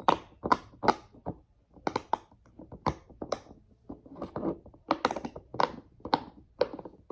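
Bubbles of a silicone pop-it fidget being pressed through one after another, a run of sharp pops about two or three a second.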